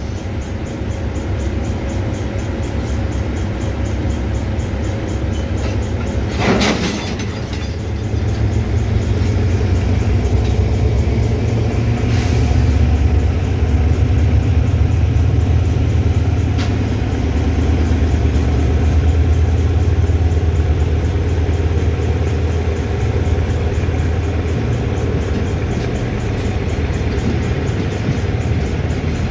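Freight train of tank wagons rolling past on the adjacent track: a steady low rumble of wheels on rail that grows louder after the first several seconds. A short noisy burst comes about six and a half seconds in, and a fainter one near twelve seconds.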